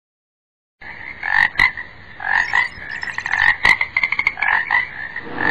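Frog croaking over and over, a string of short croaks with sharp clicks among them, starting about a second in.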